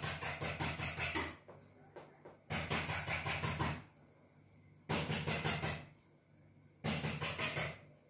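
Chalk scraping on a blackboard as lines are drawn: four strokes of about a second each, with short pauses between.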